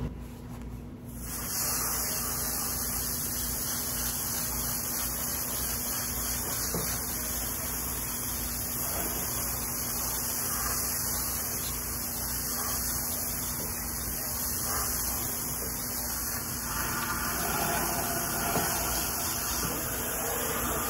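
Garden hose spray nozzle hissing steadily as water is sprayed onto a wooden fence, rinsing off a chemical wood cleaner. The spray starts about a second in, and its sound shifts near the end as water spatters over the boards.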